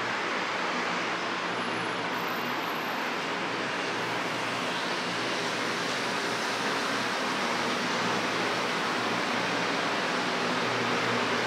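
Steady background noise of a tiled underground passage: an even hiss over a low hum, with no distinct events.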